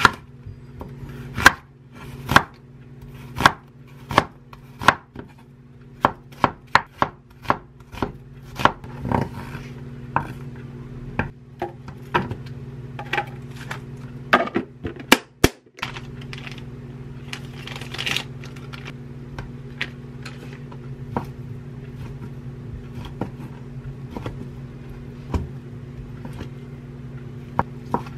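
Chef's knife slicing an onion on a wooden cutting board: sharp knocks of the blade hitting the board, about one to two a second, for the first half. Then lighter, sparser knife taps as chicken breast is sliced, over a steady low hum.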